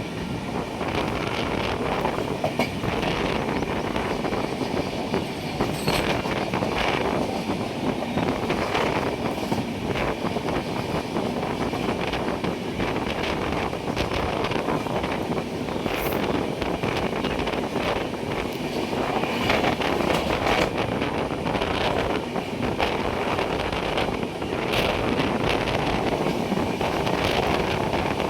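Moving train running on the rails: a steady rumble with irregular knocks from the wheels over the track.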